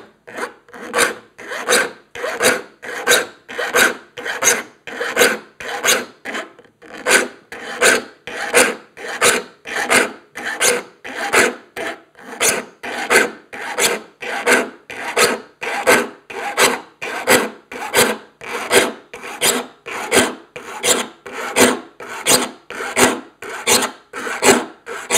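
Steel saw file rasping across the teeth of a crosscut handsaw clamped in a saw vise, in steady strokes about two a second with a brief pause about six seconds in: the teeth are being sharpened to a crosscut, gullet by gullet.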